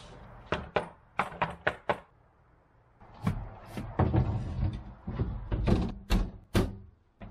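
Sharp knocks and clatter from a gel-coated plywood hatch door and its metal trim frame being handled. About six quick knocks come first, then from about three seconds in a longer run of knocks and rubbing as the door is set into its floor opening and pressed down.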